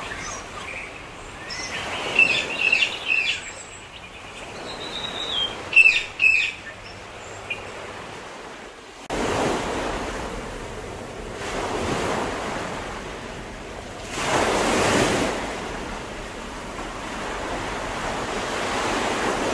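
Small birds chirping in short bursts, one call gliding upward. About nine seconds in, the sound changes suddenly to ocean surf: waves washing in and drawing back every two to three seconds.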